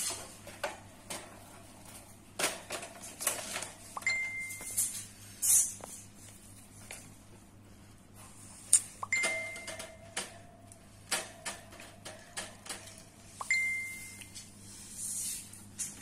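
Wire-and-plastic hamster cage giving scattered clicks, knocks and rustles, with three short metallic pings, one about four seconds in, one about nine seconds in and one near the end.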